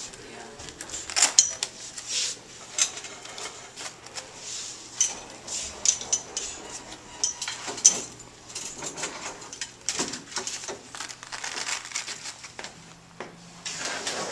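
Irregular clicks, clinks and knocks of metal film-light stands and gear being handled and adjusted, with the sharpest knocks about a second in and about eight seconds in.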